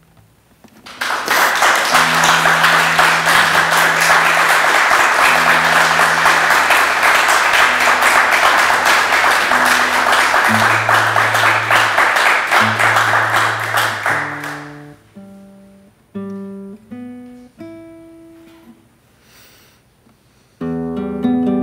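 Solo classical nylon-string guitar: a long stretch of fast, dense strumming over a moving bass line, giving way about fourteen seconds in to single plucked notes, before full strummed chords return near the end.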